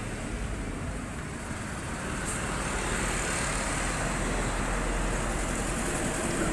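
Steady background noise, a low rumble with a hiss, getting a little louder about two seconds in, with one faint click.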